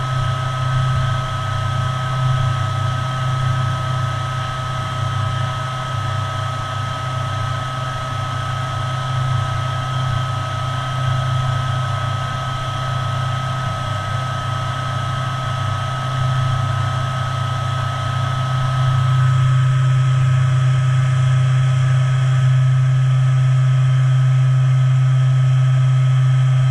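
DMG CTX gamma 3000 TC turn-mill center running, a steady low hum with a steady high whine over it. The hum steps up and grows louder about two-thirds of the way in, while the milling head swivels.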